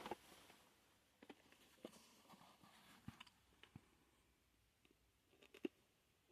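Near silence broken by a dozen or so faint, sharp clicks and light taps, scattered irregularly, with a short cluster near the end.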